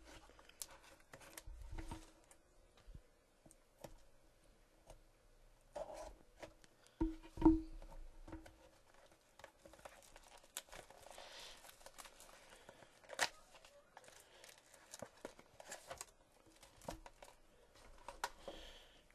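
A cardboard box of trading cards being opened by hand: clear wrapper torn and crinkled, cardboard flaps and cards handled, with scattered clicks and a thump about seven seconds in.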